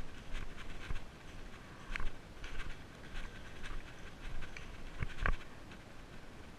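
Footsteps crunching and rustling through dry fallen leaves, an irregular run of small crackles, with two sharper knocks close together about five seconds in.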